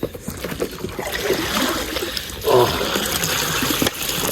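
Lake water splashing and trickling around a leaking cardboard boat as it swamps with water through its gaps.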